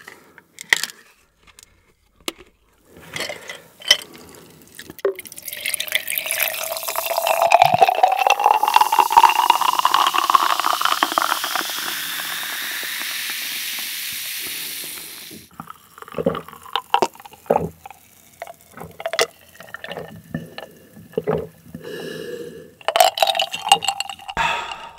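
Fanta soda poured from a plastic bottle into a glass jar over ice: a fizzing pour of about ten seconds whose pitch rises steadily as the jar fills. A few clicks come first as the bottle cap is twisted off. Scattered small clicks and fizzing follow the pour, and there are sips from the jar near the end.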